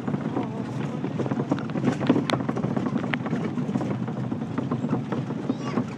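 Miniature park train's open passenger car rolling over rough track, rattling and clattering with many short knocks as it rocks and bounces.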